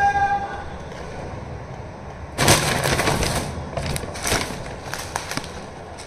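Packaging being handled: a loud burst of crackling and crinkling about two and a half seconds in, then scattered lighter crackles. A steady whistle-like tone dies away just after the start.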